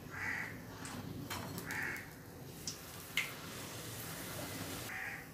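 A puri dropped into hot oil in an iron kadai starts sizzling about a second in, with two sharp clicks of utensils around the three-second mark. A crow caws three times over it.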